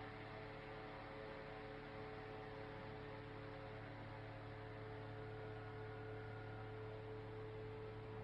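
Small USB mini fan running steadily: an even hum with a few held tones over soft air noise, unchanging throughout.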